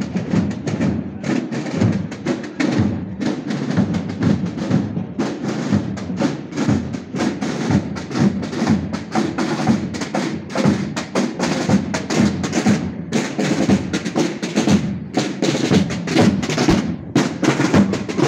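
Procession drum corps of snare drums and a bass drum beating a steady marching rhythm, with many strokes a second.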